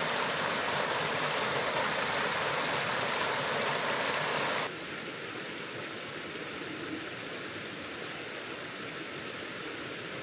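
Shallow rocky creek rushing over stones, loud and close. A little under halfway through it cuts suddenly to a quieter, steadier, more distant rush of the creek.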